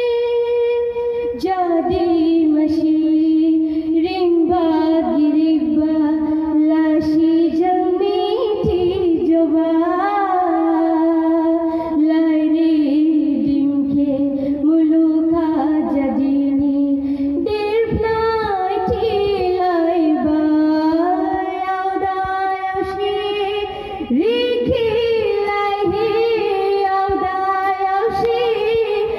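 A young woman singing solo into a microphone, a slow melody with long held notes and occasional bends in pitch.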